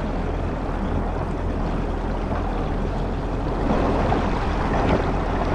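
Yamaha GP1800R SVHO jet ski's supercharged four-cylinder engine running steadily with a low hum, under an even hiss of wind and water.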